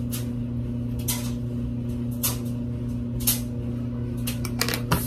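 Washer and dryer running with a steady low hum, with a few sharp clicks and taps over it, the loudest about three seconds in and near the end.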